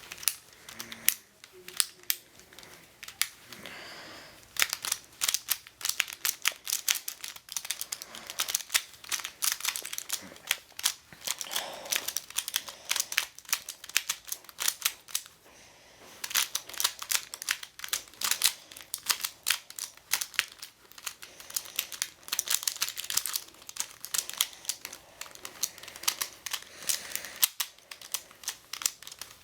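Plastic triangular twisty puzzle being turned rapidly by hand to scramble it: a dense, irregular run of clicks and clacks as the layers snap round, with a short pause partway through.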